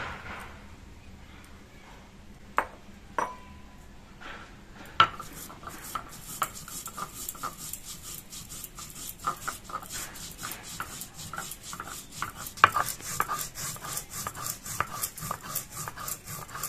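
Roasted nigella seeds being ground on a sil-nora, the stone roller rubbed back and forth over the pitted grinding slab. A few separate knocks come first, then from about five seconds in a steady run of quick, rhythmic grinding strokes.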